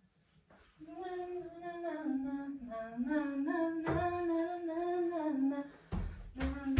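A woman humming a tune in long, gliding notes, with heavy thumps of feet on the wooden floor about four seconds in and again a couple of times near the end as she dances.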